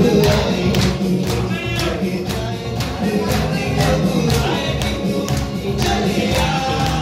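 Amplified live music with a steady, even percussion beat over a full low accompaniment, and some singing.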